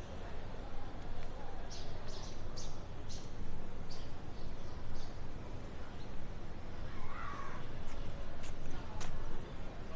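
A bird calling: a quick run of short, high calls, about eight in three seconds, then a lower single call about seven seconds in, over steady outdoor background noise.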